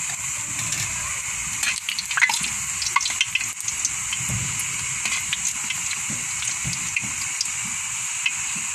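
Vegetable balls deep-frying in hot oil in a wok: a steady sizzle with crackling pops, busiest from about two to three and a half seconds in.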